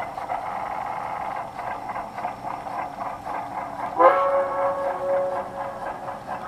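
Model Southern Pacific AC-4 4-8-8-2 steam locomotive running with its freight train, a steady chuffing and rolling rail noise, then one loud steam whistle blast about four seconds in that lasts around two seconds.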